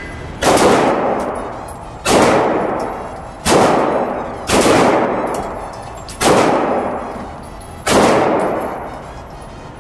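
Six pistol shots fired one at a time, unevenly spaced about one to one and a half seconds apart, each sharp crack followed by a long echoing decay in the enclosed indoor range.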